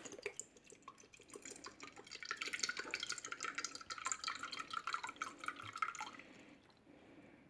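Half a cup of vinegar poured into a deep bowl: a thin trickling stream that starts about a second in, runs for about five seconds, and stops near the end.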